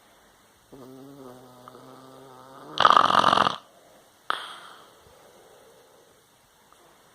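A dog snoring loudly, much like a person. A low, evenly pitched drone of about two seconds comes first, then a loud rasping snore about three seconds in, and a short sharp snort a second after that.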